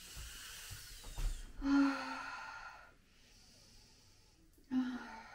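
A pregnant woman's heavy breathing and sighing through a labour contraction: long noisy exhales, with a short voiced sigh about two seconds in and another near the end.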